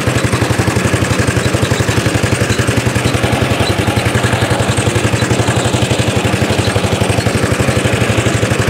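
Petrol engine of a 1930s Dennis Z-type cylinder lawn mower running steadily, its exhaust beating in a fast, even pulse as the mower cuts across the lawn.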